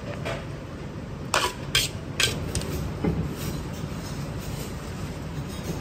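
A few sharp metal clinks from a wok as fried rice is tipped and scraped out onto a plate, the clearest around one and a half to two seconds in, over a steady low hum.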